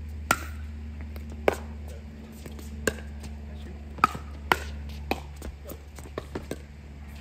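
Pickleball rally: six sharp pops of paddles striking a plastic pickleball over about five seconds, then a few lighter taps near the end. A steady low hum runs underneath.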